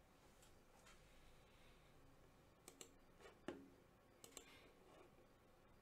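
Near silence: room tone with a few faint, sharp clicks in the middle, the sharpest about three and a half seconds in.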